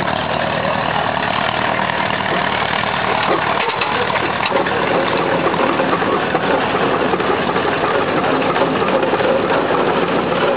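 Antique steam traction engine running steadily at rest, a continuous even engine sound with no break or change.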